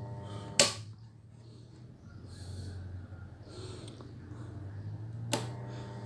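Home-built arc welder of four microwave oven transformers humming on mains power. It cuts off with a sharp click about half a second in, then comes back on with another click near the end.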